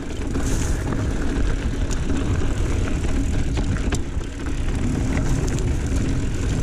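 Mountain bike rolling down a dirt singletrack, with a steady low rumble of wind and ride noise on the bike-mounted camera's microphone and a few sharp clicks and rattles from the bike.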